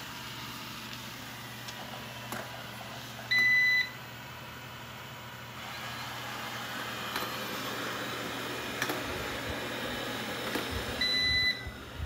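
Coredy R750 robot vacuum running: a steady whir from its suction fan and brushes that grows somewhat louder about halfway through. Two half-second beeps, about three and eleven seconds in, and a few light clicks.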